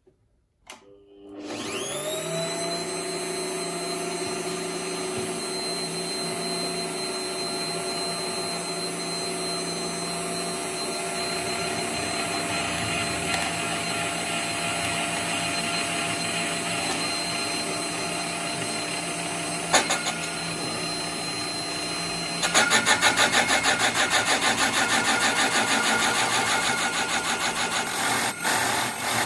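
Gear-driven Bosch PBD 40 drill press starting about a second in, spinning up and running at slow speed with a steady whine, as its hole saw cuts into an OSB board. Near the end the cut gets louder, with a fast, pulsing chatter.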